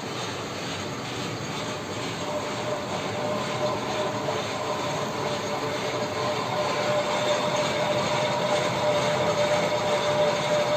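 Lathe running while turning a separator pipe down to 26 mm diameter. A steady whine from the cut sets in about two seconds in and grows slowly louder.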